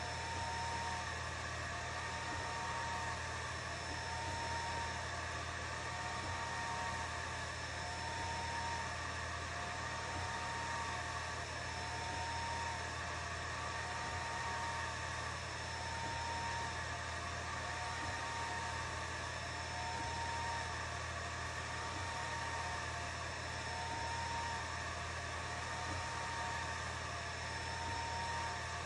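Atomstack A10 Pro laser engraver running an engraving job: a steady whir of its fans, with the stepper-motor whine of the laser head sweeping back and forth, rising and falling about every two seconds.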